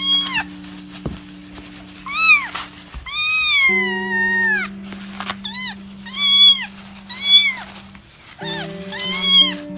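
A kitten meowing repeatedly in short, high-pitched arched calls, about eight of them, one drawn out longer about three and a half seconds in. Background music with held low notes plays underneath.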